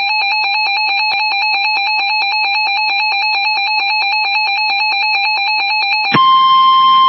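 NOAA Weather Radio alert tones ahead of a severe thunderstorm watch broadcast: a harsh, buzzing tone pulsing rapidly and evenly, which about six seconds in switches to one steady high beep, the weather radio warning alarm tone.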